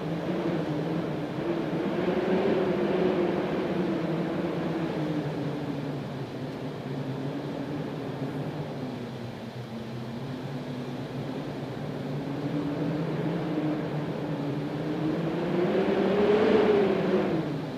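Wind howling: a steady rush with a low moaning tone that wavers up and down in pitch. It swells and eases, with the strongest gust near the end.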